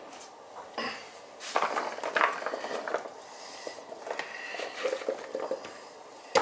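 Kitchen clatter of pans and utensils being handled, with scattered light knocks, clinks and rustles.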